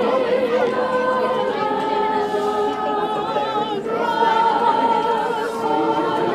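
A group of people singing together, holding long notes, with a change of note about four seconds in.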